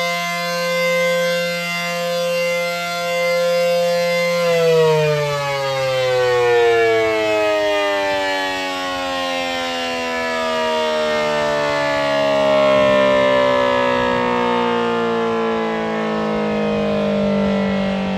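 ACA Penetrator P-10 dual-tone outdoor warning siren sounding a steady two-tone chord, then winding down about four seconds in, both tones sliding slowly lower in pitch as the rotor loses speed at the end of the test signal. The level swells and fades every few seconds as the rotating siren head sweeps past.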